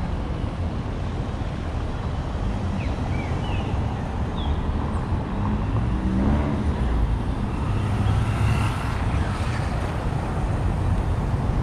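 Street ambience of steady passing vehicle traffic, a dense continuous rumble, with a few short high chirps scattered through.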